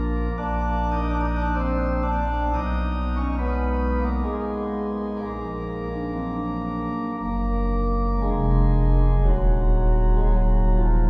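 Slow organ music: sustained chords held and changing, with a deep bass note entering about seven seconds in and the sound growing a little louder.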